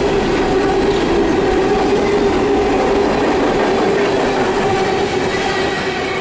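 Empty CSX coal hopper cars rolling past on steel wheels, a continuous loud rumble with a steady ringing tone over it.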